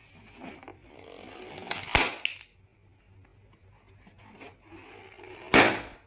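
Two balloon pops, sharp and loud, about three and a half seconds apart. The first comes after a second or so of scraping noise, and a small click follows it.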